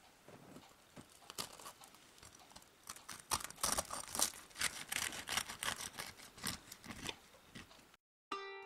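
A knife and fork cutting through the crisp fried breadcrumb crust of a potato croquette: a dense run of crackling crunches, loudest in the middle and thinning out near the end.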